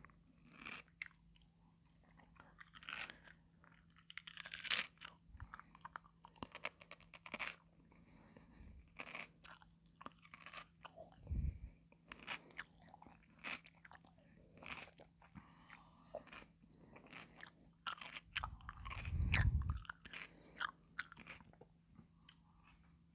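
Raw cucumber being bitten and chewed close to the microphone: a run of irregular crisp, wet crunches, with two heavier low thuds, one about halfway through and a longer one near the end.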